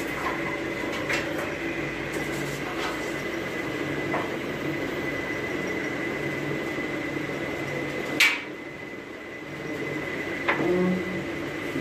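Electric motor and hydraulic pump of a jaimala stage lift running with a steady hum as the cylinders raise the platform. A sharp click comes about eight seconds in, the hum dips for a moment and then picks up again, and a few lighter clicks and knocks fall in between.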